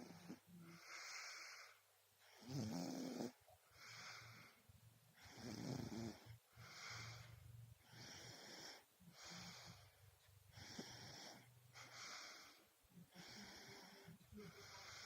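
A small child snoring in sleep with a pacifier in its mouth: quick, even breaths about one a second, a few of them with a low snore.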